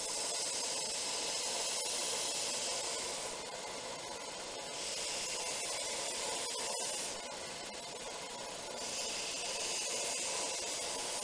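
Belt grinder running with a fresh 120-grit belt while a knife blade is sharpened on it: three passes of steel against the abrasive, each a hiss of two to three seconds, with the machine's steady running between them.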